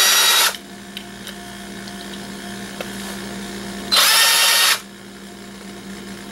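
Cordless drill-driver spinning a screwdriver bit in two short bursts, one at the start and one about four seconds in, backing screws out of a small circuit board.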